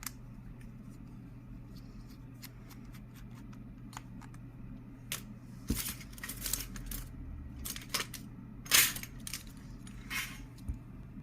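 Light clicks and several short scraping bursts as repair tools work an iPhone 11 open, the loudest a little before nine seconds in. The screen is tight, which the technician puts down to the phone never having been opened and still being sealed with factory adhesive.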